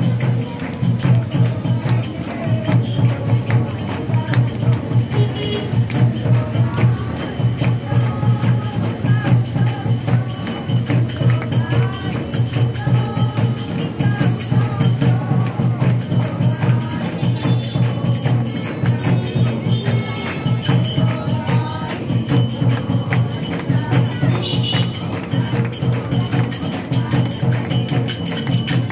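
Devotional aarti music: voices singing together over a steady beat of drum and jingling hand percussion.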